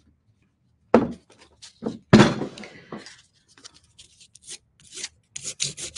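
Two knocks and some handling clicks, then, near the end, quick rhythmic strokes of sandpaper rubbed over the clear sticker label on a glass candle jar to sand it off.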